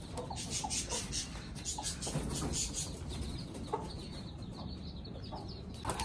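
Domestic chickens clucking softly, a scattering of short clucks.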